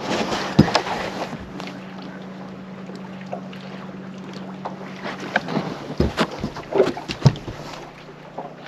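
Sounds on board a fishing boat: a steady low motor hum that fades about five and a half seconds in, with scattered knocks and clunks on the boat, the loudest about six to seven seconds in, and wind on the microphone.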